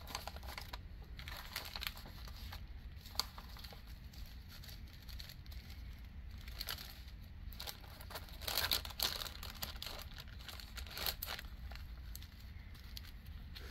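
Small plastic bags of diamond-painting drills crinkling and rustling as they are handled, in irregular short bursts, loudest about two-thirds of the way through.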